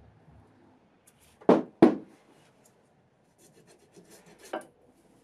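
Masking tape being worked onto the cast-iron body of a Record No. 3 vice and trimmed with a craft knife. Two short, loud sounds come close together about a second and a half in, then light scratching of the blade along the metal near the end.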